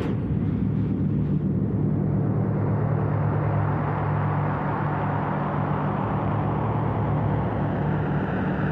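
Electronic music: sustained low synthesizer drone tones under a wash of noise, with no beat. The low tones shift about halfway through, and the noise grows brighter near the end.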